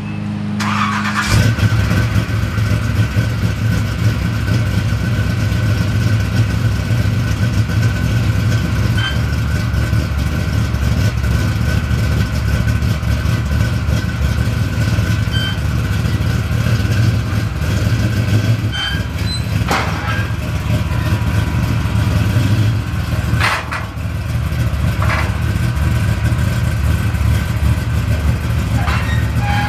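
A drag-built box Chevy's engine starts about a second in, then idles steadily with a deep rumble and a few short sharp clicks or pops. Near the end the car is backed down off the trailer.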